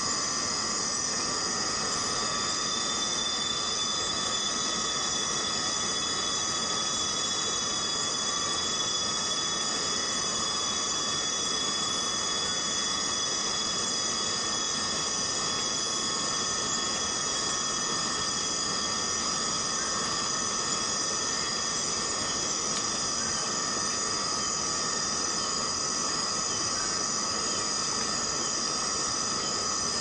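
Rainforest cicadas droning in a dense, unbroken chorus: several steady, high, ringing tones layered over a hiss. A thin, higher whine runs through the first half and fades out.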